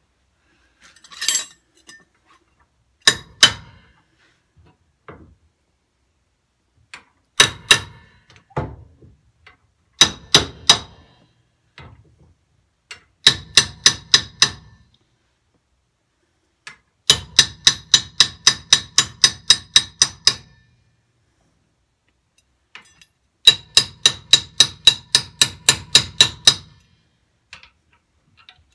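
A hammer strikes steel at the kingpin of a Morris Z van's front axle, in bursts of sharp ringing blows. At first come short groups of two or three, then a run of about five, then two long runs of about a dozen quick blows, roughly four a second.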